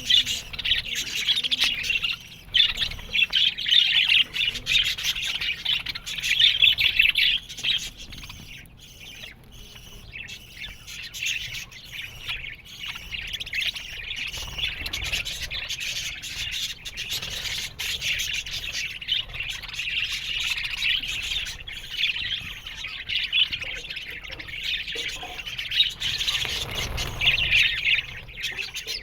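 A colony of budgerigars chirping and warbling together in a dense, continuous chatter, with occasional squawks.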